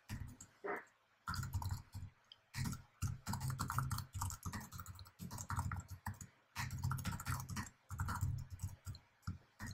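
Typing on a computer keyboard: a steady run of quick keystrokes with a few short pauses.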